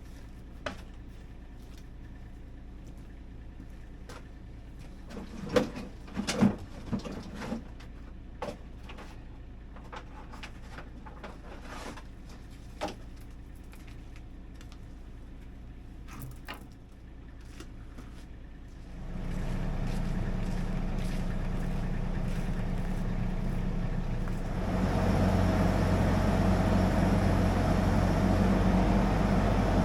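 Scattered knocks and clatter, then an engine comes in steadily about two-thirds of the way through and gets louder a few seconds later.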